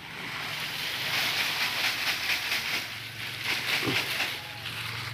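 Paper egg-carton trays and dry leaves rustling and crackling as they are pulled out of a cricket rearing box by hand.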